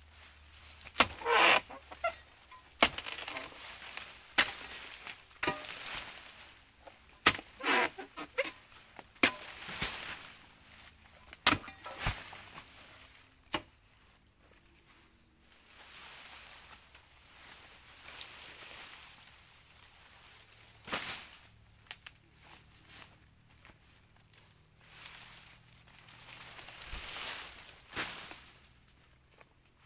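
Steady high insect drone with scattered sharp knocks and rustles, most of them in quick clusters during the first half and only a few later.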